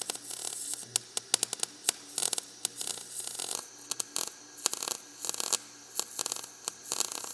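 MIG welding arc crackling and hissing on sheet steel, with frequent sharp pops and spatter, over a faint steady hum. The crackle breaks briefly about three and a half seconds in, then resumes.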